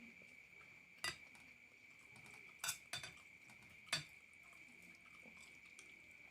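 A metal spoon or fork clinking against a plate or bowl four times while eating, short sharp clicks, two of them close together in the middle. A faint steady high-pitched whine runs underneath.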